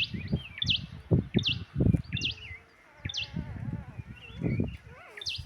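A bird calling the same short, sharply swooping note over and over, about every half second, against a run of irregular dull low thuds.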